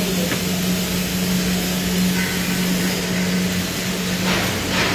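TIG welding on a pipe root pass: steady hiss of the arc over a constant low machine hum, the hiss swelling briefly near the end.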